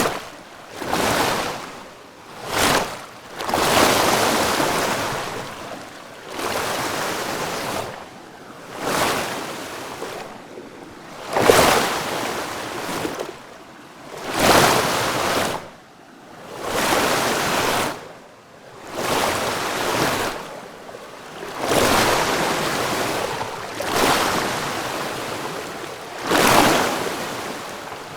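Heavy water rushing and splashing in irregular surges, each swelling and fading over one to three seconds.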